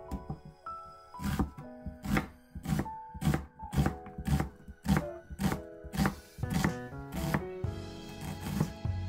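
Kitchen knife slicing a halved onion on a plastic cutting board: about a dozen strokes at a steady pace, roughly two every second, stopping near the end. Background music plays throughout.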